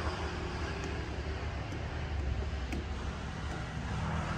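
Steady low rumble of distant road traffic, with one faint click about two-thirds of the way through.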